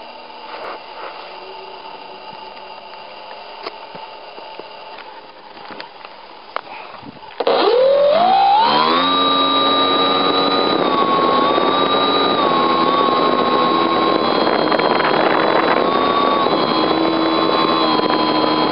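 A small aircraft's engine runs quietly at low throttle, then is opened up sharply about seven seconds in. Its pitch sweeps up within a second and it holds loud and steady at high power for the take-off run and climb, with small rises and falls in pitch.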